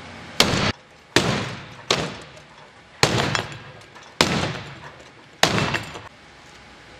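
Sledgehammer repeatedly striking a fiberglass boat deck: about six heavy blows roughly a second apart, each a sharp crack with a short ringing tail, breaking the fiberglass that they have already holed.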